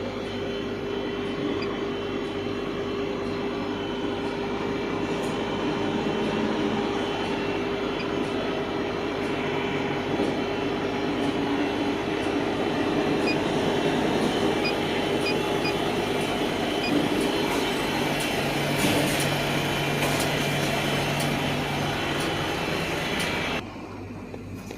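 Diesel pump running and fuel rushing through the nozzle into a Scania truck's tank: a steady hum under a rushing flow that cuts off sharply near the end.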